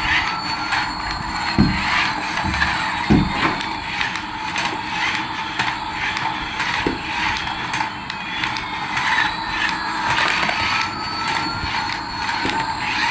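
Toy radio-control airplane running: a steady electric hum with slow rising and falling whistling tones over it, and many small clicks and knocks.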